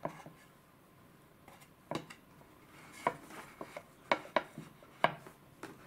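Light clicks and knocks of hands handling a plastic toy sushi machine and taking its pressed rice blocks out onto a plate, a scattering of separate taps that come thicker in the second half, with faint rubbing between them.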